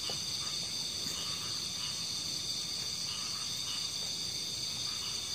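Steady, high-pitched chorus of crickets and other night insects.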